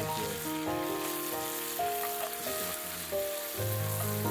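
Scallops sizzling as they fry in butter in a pan, a steady hiss, with background music.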